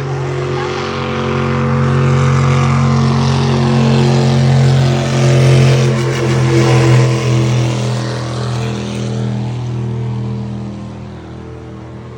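Racing motorboat engine running hard as the boat passes, growing louder to a peak about six seconds in and fading away after about ten seconds.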